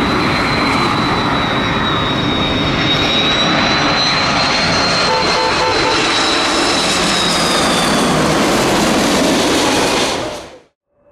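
Jet airliner engines running loud: a dense rumble with a steady high whine over it. The sound fades out abruptly near the end.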